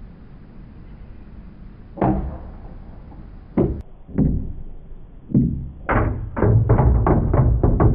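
Small ball bouncing on a wooden table and against a plastic toy garage: a single knock about two seconds in, a few scattered knocks after it, then a quick run of bounces, about four or five a second, in the second half.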